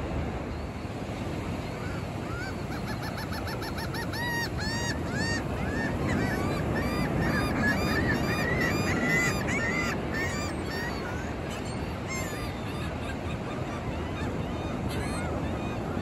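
Gulls calling over steady ocean surf: a quick run of repeated calls starts about two and a half seconds in, grows into several birds calling over one another, and fades out around eleven seconds, with one more short call near the end.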